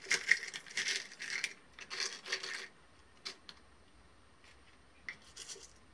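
Small metal jewellery findings clinking and rattling as they are sorted through by hand, with a rapid run of clicks at first and then a few single clicks.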